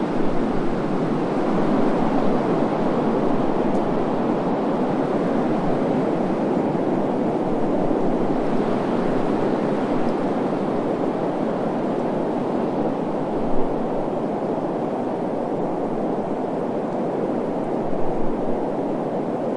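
Wind ambience recording used as soothing white noise: a steady low rushing hiss that swells slightly about halfway through.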